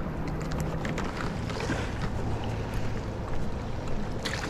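Wind on the microphone and sea washing against shoreline rocks, a steady rushing noise with a low steady hum underneath. A few sharp clicks come near the end.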